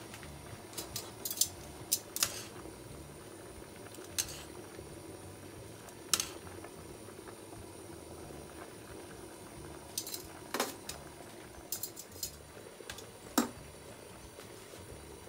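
Water boiling in a stainless steel pot of spaghetti, a steady bubbling hiss. Sharp metallic clinks come from a utensil knocking against the pot as the pasta is stirred and lifted, some single and some in quick clusters.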